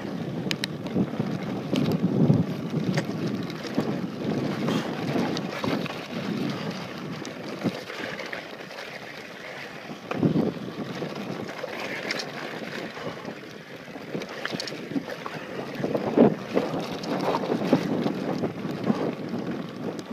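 Wind buffeting the microphone and mountain-bike tyres rolling fast over a dirt trail on a downhill run, with irregular bumps and rattles from the bike over rough ground.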